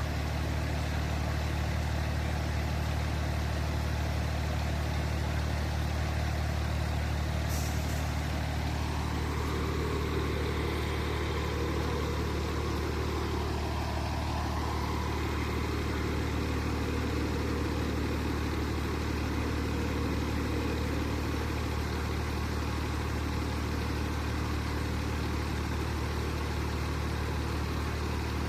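Fire truck's engine idling, a steady low hum throughout.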